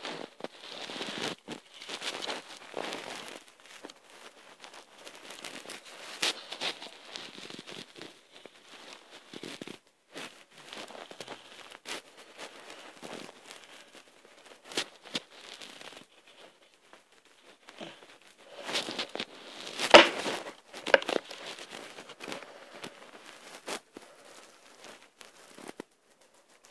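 Pencil scratching on paper in short, irregular drawing strokes, with scattered clicks. A sharp knock about twenty seconds in is the loudest sound.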